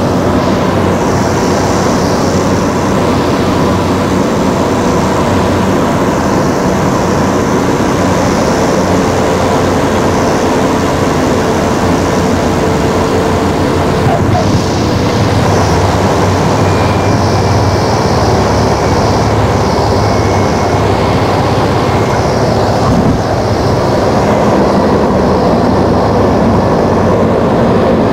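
Loud, steady engine drone of a landing airplane heard from inside the cabin. About halfway through there is a brief knock, and a deeper rumble joins in as the plane rolls along the runway.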